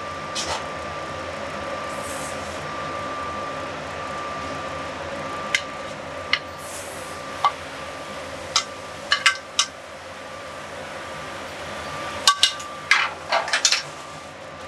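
Sharp clinks and knocks of a metal sauté pan against a ceramic plate as creamed spinach is turned out of it, a few single ones at first and then in clusters in the second half. Under them is the steady hum of a commercial kitchen with a faint high whine.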